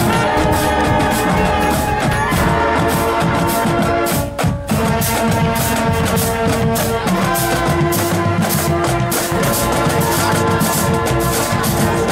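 Marching band playing: sustained brass notes over a fast, steady drum beat, with a brief break a little over four seconds in.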